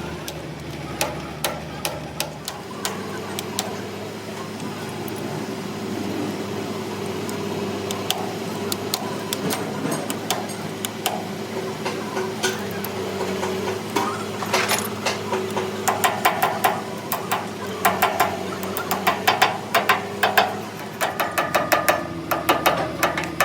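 Repeated hammer blows on metal over a steady machine hum. From about two-thirds of the way in, the strikes come in quick runs and ring.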